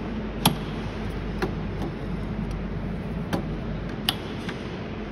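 A few sharp plastic clicks and taps, the loudest about half a second in, as inductor cable connectors are worked loose and unplugged from an inverter's main circuit board, over a steady low hum.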